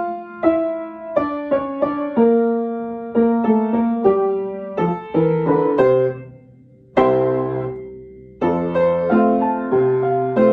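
Piano played while sight-reading a piece: a steady succession of single notes and chords, with one chord held about seven seconds in and dying away before the playing picks up again.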